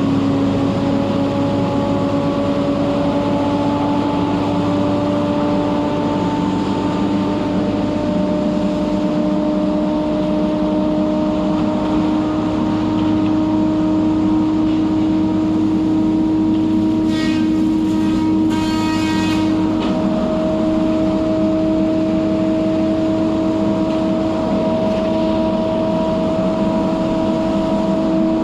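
Hot saw feller buncher running steadily at work, its engine and saw tones rising slowly in pitch. Two short high-pitched whines come about two-thirds of the way in.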